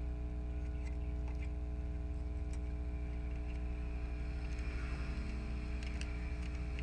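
Steady low hum with several fixed tones, and a few faint light clicks from a metal tool working small plastic printer parts while a flex cable is pushed into its slot.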